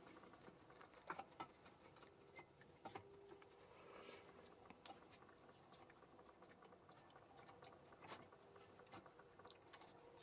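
Near silence, with faint scattered clicks and taps of hands handling a small wire crankshaft and the wooden whirligig parts.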